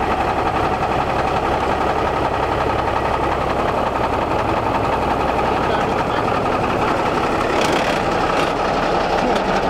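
A 1966 REO truck's engine running at a steady idle.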